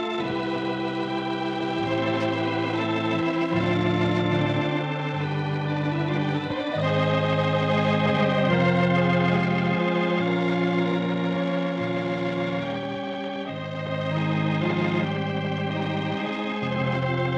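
Organ music playing slow, held chords over a bass line that steps to a new note every second or two.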